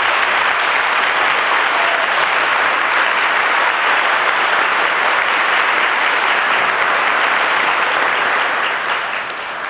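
Crowd of students applauding, loud and steady, then starting to die away near the end.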